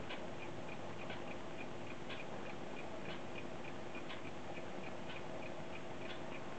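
Philips record player with a 78 rpm shellac disc spinning after the music has ended, the stylus running in the run-out groove: steady surface hiss and a low hum, with a soft click about once a second and fainter quick ticks in between.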